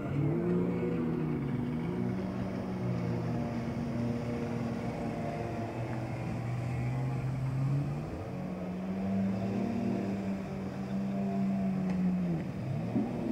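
Jet ski engines running at speed on the water, the engine pitch rising and falling again and again as the craft race by and turn.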